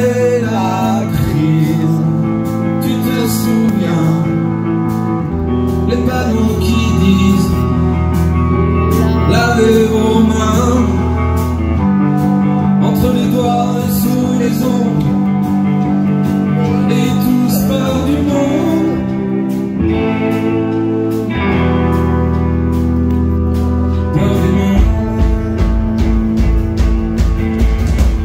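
Band playing live: acoustic and electric guitars, trumpet and drums, with a male lead vocal. A steady low beat comes in near the end.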